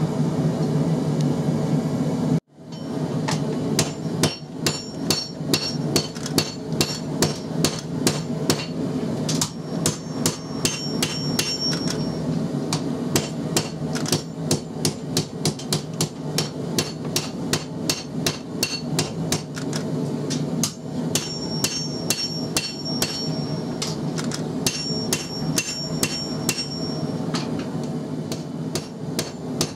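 Hand hammer forging red-hot XC75 carbon steel on an anvil, shaping the blade of a forge-finish knife: a steady run of blows, about two to three a second, many leaving a high anvil ring, over a steady low hum.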